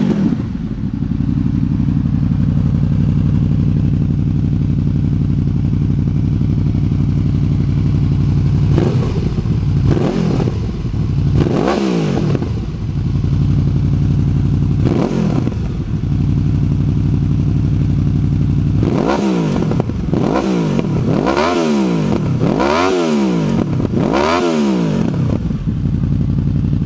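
2014 Honda VFR800's V4 engine through a GPR aftermarket exhaust, idling steadily and revved in short throttle blips. A few single blips come spread apart, then about six quick blips in a row near the end.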